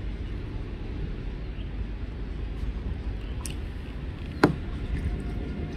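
Low rumbling noise throughout, with one sharp knock about four and a half seconds in.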